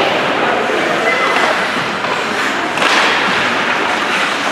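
Gymnasium game noise: indistinct voices and crowd chatter echoing in a large hall, with a louder surge of noise about three seconds in and an occasional thud.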